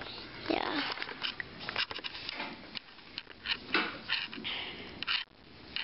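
Irregular rustling and scuffing close to the microphone, with scattered sharp clicks and knocks: handling noise from a handheld camera being held and moved about.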